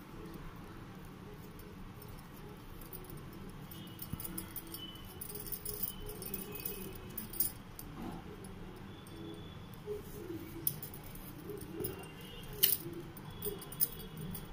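A small kitchen knife cutting raw amla (Indian gooseberries) into segments by hand, with scattered sharp clicks and taps, the loudest near the end.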